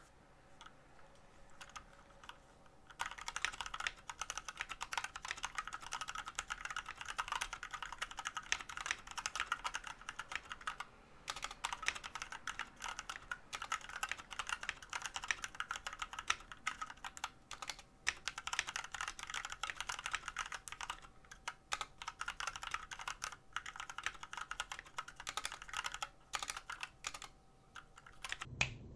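Typing on a HAVIT 89-key tenkeyless mechanical keyboard with lubed Jixian Red linear switches: a fast, dense run of keystrokes that starts about three seconds in, pauses briefly twice, and stops just before the end.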